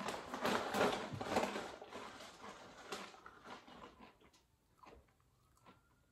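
Straight-cut potato crisps being bitten and chewed, loud crunching in the first couple of seconds that fades away by about four seconds in, with a muffled vocal noise from the eater reacting to the strong lime taste.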